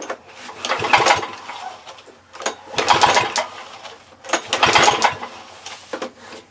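Lawn Boy two-stroke mower engine cranked three times with the recoil pull-starter, about two seconds apart, turning over without starting. It is a no-start mower being pulled over for a spark check.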